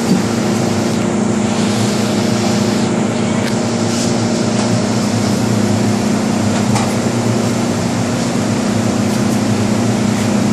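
An MTR M-Train car standing at a platform with its doors open, with its air-conditioning and onboard equipment giving a steady hum that carries a few low, even tones.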